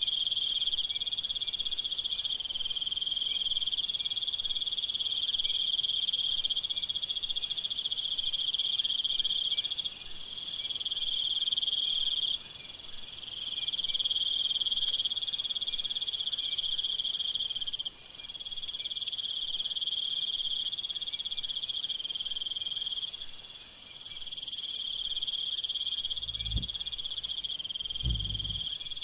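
Night-time jungle insect chorus: several overlapping high, steady trills of crickets and other insects, each starting and stopping every few seconds. Two short low sounds come near the end.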